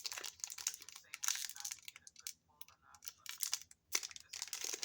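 Foil Pokémon booster pack wrapper crinkling and tearing as it is opened by hand, in irregular crackly bursts.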